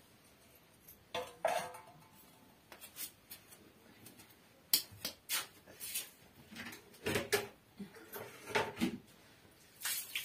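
Steel pan and kitchen utensils clinking and knocking at irregular intervals, with a short metallic ring about a second in.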